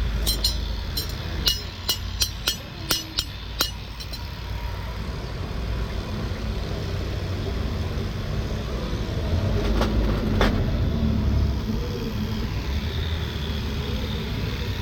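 Farrier's tools at work on a horse's hoof: a quick run of about ten sharp clicks or taps in the first few seconds, then two more about ten seconds in, over a steady low rumble.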